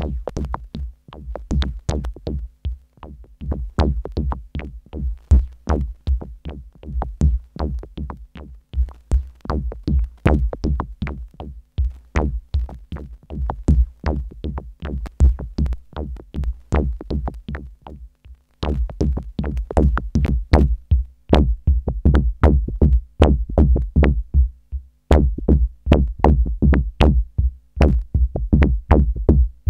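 Electronic music played live on a modular synthesizer and drum machine: a fast drum-machine beat of sharp, clicky hits over a deep bass pulse. It drops out briefly about twelve seconds in and again near eighteen seconds, then comes back fuller.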